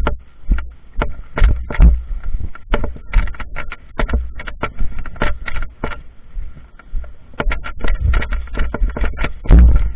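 A dense, irregular clatter of sharp clicks and knocks with heavy low thumps close to the microphone, with no steady rhythm.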